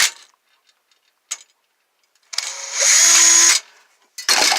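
Cordless drill-driver backing out screws from a circuit board: a run that stops just after the start, then a steady whir of about a second in the middle, followed by a short clatter near the end.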